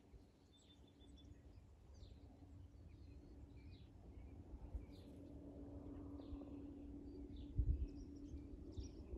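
Faint rural evening ambience: scattered short bird chirps over a low steady hum that swells slightly mid-way, with a low rumble and two brief thumps near the end.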